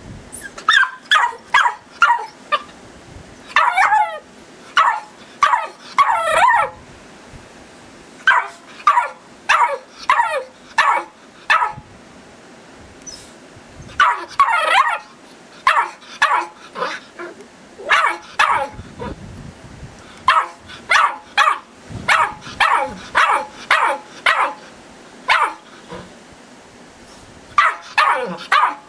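Eight-week-old Irish Terrier puppy barking over and over: quick runs of short, high yaps with short pauses between the runs, and now and then a longer, drawn-out yelp.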